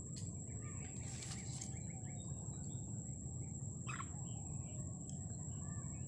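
Small birds chirping in short, scattered calls, with a brief noisy burst about a second in, over a steady high whine and a low background rumble.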